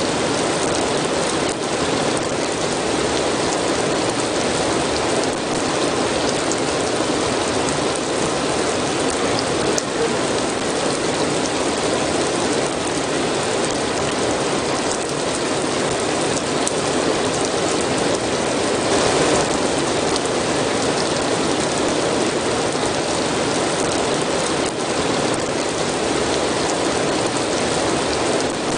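Steady, heavy rain falling, a dense hiss with fine crackling drops that keeps an even level throughout.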